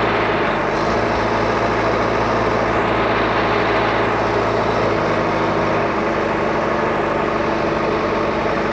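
The diesel engine of a JCB 4DX backhoe loader runs steadily as the machine is driven slowly on light throttle. The engine note changes about six seconds in.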